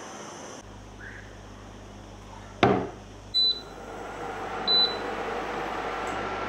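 A stainless steel saucepan is set down on a glass induction hob with a ringing clank, then the hob's touch controls give two short beeps. The hob starts running with a steady fan hum and a faint high whine.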